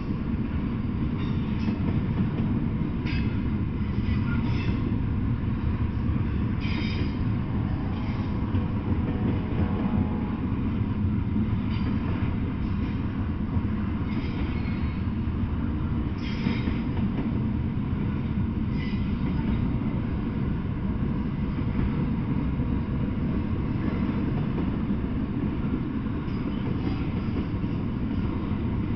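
Double-stack intermodal freight train rolling past, a steady rumble of steel wheels on rail. Brief high-pitched wheel squeals come every few seconds.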